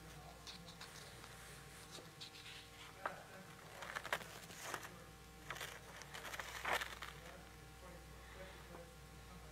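Faint rustling and a few sharp clicks, busiest from about four to seven seconds in, over a steady low hum.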